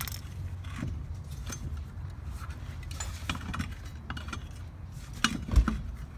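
Lug nuts clinking on the wheel studs as they are spun off a steel wheel by hand, in scattered light metallic clicks, with one louder knock near the end.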